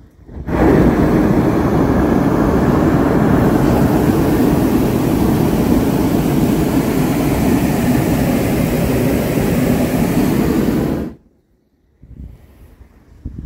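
Hot-air balloon's propane burner firing in one long burn of about ten seconds, loud and steady, starting about half a second in and cutting off suddenly near the end.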